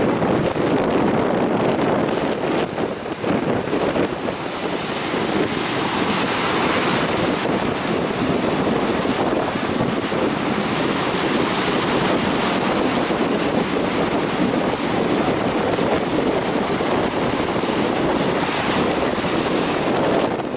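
Strong wind buffeting the microphone over the steady surf of high waves.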